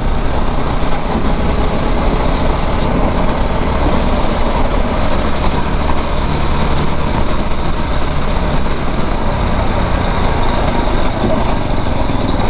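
9 hp kart engine running steadily while the kart drives around the track.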